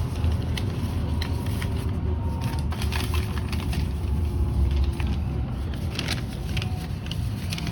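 Steady low rumble of a vehicle, with scattered clicks and knocks and a faint tone that slowly drops in pitch.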